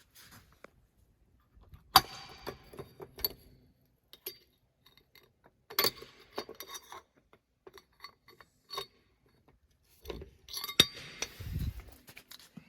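Keys jangling and sharp metallic clicks and clacks in three bursts, the loudest about two seconds in, from a fire alarm pull station being handled and pulled; no alarm sounds.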